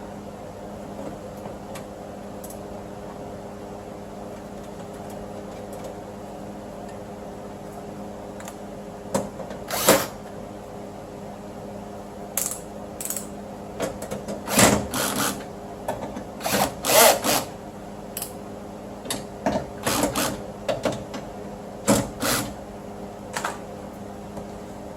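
Short, irregular bursts of tool noise as the new window regulator's mounting bolts are fastened inside the car door, starting about nine seconds in. They sound over a steady background hum.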